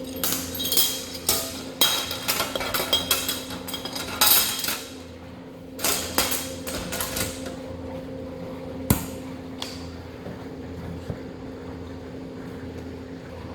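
Metallic clattering and knocks, a run of them in the first five seconds and a single sharp knock later, over the steady hum of a milk bulk tank's cooling and agitator machinery.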